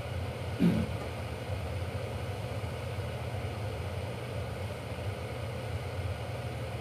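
Steady low hum of room tone, with one brief, short vocal sound about half a second in.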